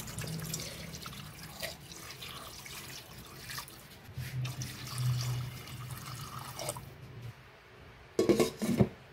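Water pouring into a stainless steel pot over raw pork belly, a steady splashing stream. Near the end a glass pot lid is set on with a few loud knocks against the metal rim.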